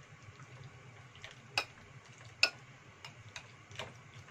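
Metal spoon clicking against a ceramic bowl while mashing raw tofu: a few sharp, irregular clicks, two of them much louder near the middle, over a faint low hum.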